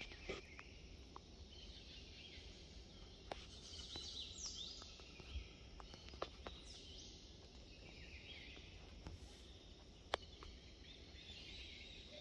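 Faint outdoor nature ambience: a steady high hiss of insects with a few brief bird chirps, and a handful of scattered soft clicks.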